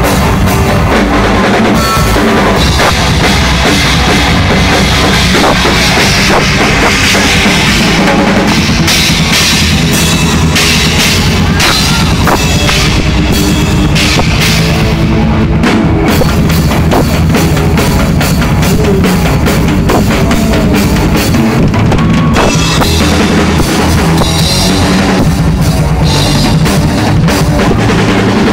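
Drum kit solo: a fast, dense stream of drum strokes with bass drum and cymbal crashes, played loud.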